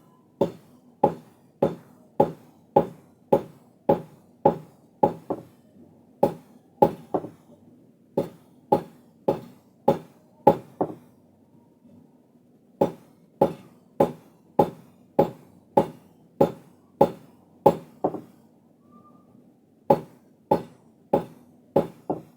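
Steady hammer blows on steel while forging a crowbar, about two strikes a second with a short ring after each, pausing briefly twice. A faint steady low hum runs underneath.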